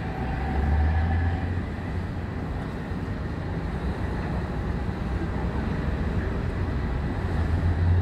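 Low, steady diesel engine rumble from heavy container-port vehicles, a straddle carrier moving among idling lorries, swelling about a second in and again near the end.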